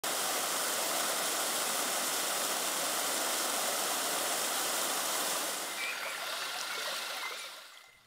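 Stream water rushing steadily, then fading out over the last two seconds, with a few faint chirps about six seconds in.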